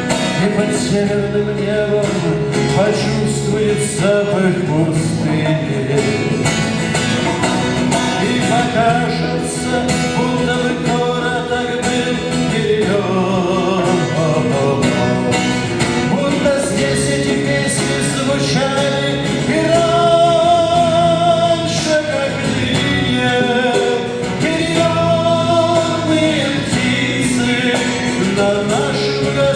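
A man singing a song, accompanied on acoustic guitar, performed live.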